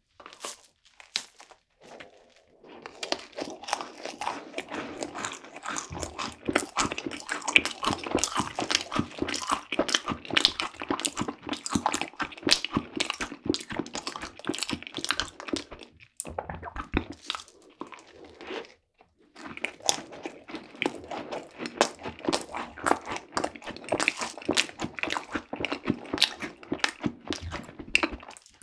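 Close-miked biting and chewing of a cream-cheese-filled macaron: a rapid, dense run of crackly clicks, with short breaks about halfway through and again a little later.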